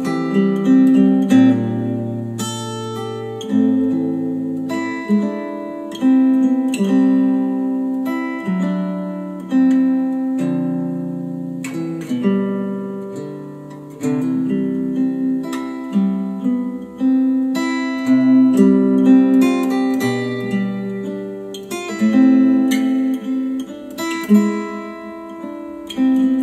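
Instrumental acoustic guitar music with plucked notes that start sharply and ring away, played back through KEF R3 bookshelf speakers.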